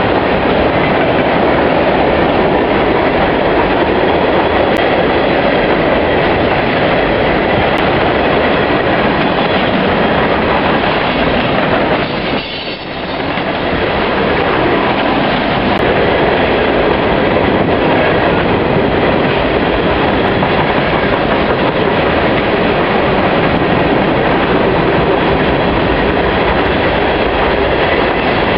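Union Pacific freight train of refrigerated boxcars rolling past close by: loud, steady rolling noise of steel wheels on the rails, with a brief drop in loudness about twelve seconds in.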